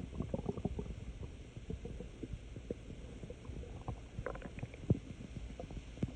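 Stomach gurgling and rumbling: an irregular run of short, bubbly pops and squelches, with a louder gurgle about five seconds in.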